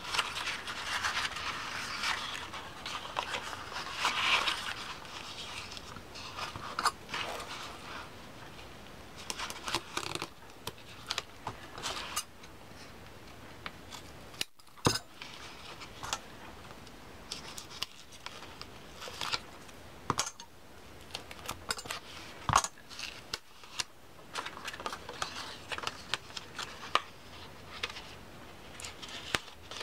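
Paper and card being folded and handled on a tabletop: rustling over the first few seconds, then scattered short clicks and snips, including scissors cutting tape.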